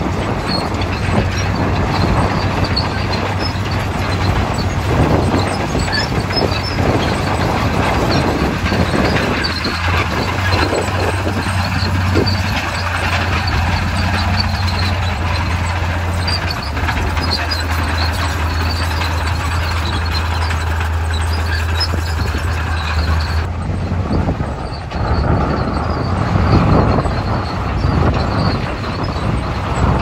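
Komatsu crawler bulldozer working under load as it pushes soil and rocks, its diesel engine running with a steady low drone over the rattle of its steel tracks. The drone breaks off about three-quarters of the way through, leaving the rattle and grinding of the machine.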